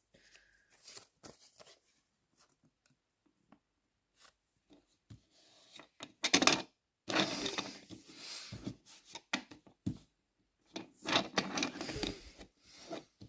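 Sheet of newspaper rustling and crinkling in the hands in irregular bursts as it is laid and pressed onto a glued model wagon roof, loudest about halfway through and again near the end.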